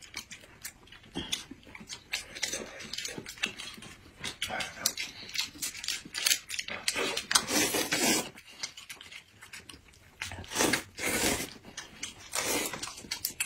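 Close-up eating sounds: noodles slurped in irregular bursts, with chewing and mouth smacking.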